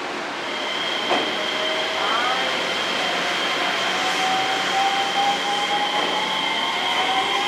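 JR Shikoku 7000-series electric train pulling out of the station. Its inverter and traction motors give a whine that rises slowly in pitch as it gathers speed, over a steady high tone. There is a sharp wheel clack over a rail joint about a second in.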